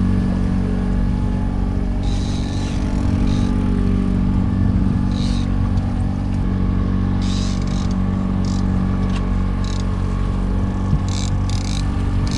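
Boat's outboard motor running steadily at trolling speed, a low even drone, with about eight short hissing bursts over it.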